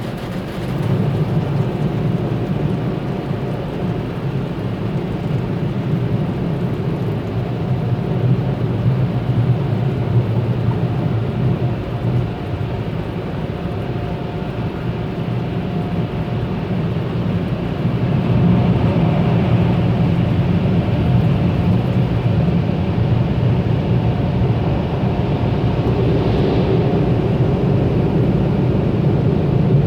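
Automatic car wash machinery running: a steady low rumble of water spray and moving equipment, which gets louder about 18 seconds in.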